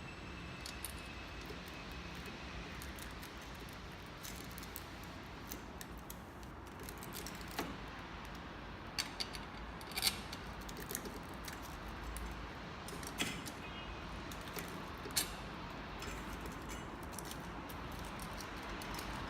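Small metal parts being handled and fitted by hand: scattered light clicks and clinks, most of them in the middle of the stretch, over a steady low hiss.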